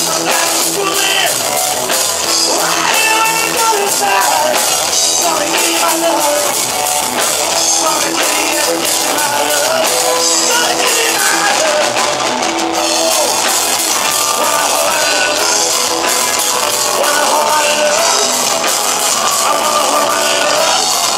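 Live rock band playing: electric guitar, bass and drum kit, with gliding guitar notes over a steady beat.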